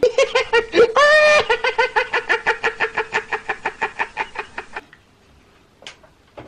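A man's high-pitched, cackling laugh: a fast run of short pulses, about six a second, with one long held squeal about a second in, tapering off after about five seconds. Two faint clicks follow near the end.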